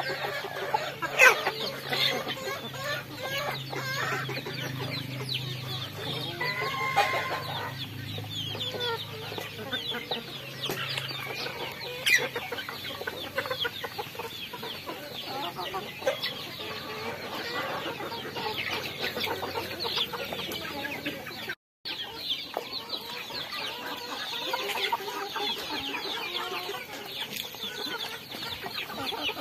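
Flock of young chickens feeding together at a pan of chopped greens, clucking and cheeping amid many quick pecking taps at the feed. One bird gives a short pitched call about seven seconds in.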